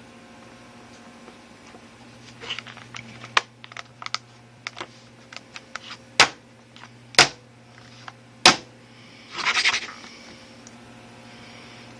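Handling of the Casio MA-10 alarm clock: light clicks from about two seconds in, then a few sharp knocks and a short rattle near the end, like its case being tapped and its buttons pressed.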